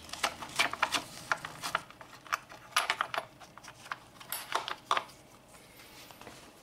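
Screwdriver backing a screw out of a plastic radiator-fan shroud: a run of small sharp clicks and scrapes as the screw turns and the wiring-harness clip comes free, dying away in the last second or so.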